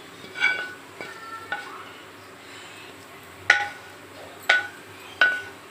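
A wooden spatula knocking and scraping against a ceramic plate as a thick, sticky sweet mixture is pushed off it. About six sharp knocks, each making the plate ring briefly; the three in the second half are the loudest.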